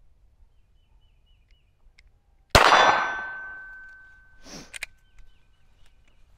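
A single pistol shot from a SIG P320 Spectre Comp about two and a half seconds in, fading over a second or more, with a metallic ring that hangs on for about three seconds. About two seconds after the shot comes a short rustle and a couple of sharp clicks.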